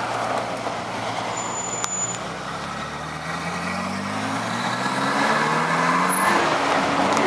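Ferrari F40's twin-turbo V8 pulling away, its engine note rising in pitch and growing louder from about two seconds in.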